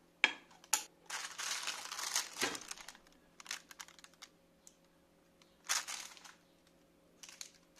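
Plastic film wrapped around nonstick frying pans crinkling in bursts as the pans are lifted and handled, with two sharp clicks in the first second.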